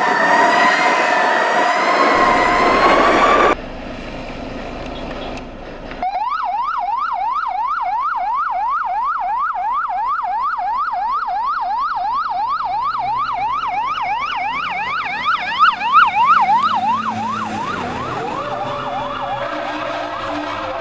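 Fire truck sirens on emergency response: first a slowly wavering wail. Then a rapid electronic yelp siren, sweeping up and down about three to four times a second, gives way near the end to a lower tone sliding slowly down.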